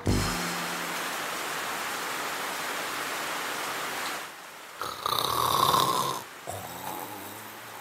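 Steady rain hissing for about four seconds, then a cartoon character snoring in bed, loudest about five seconds in.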